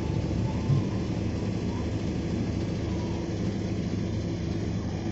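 An engine idling steadily with a low, even rumble.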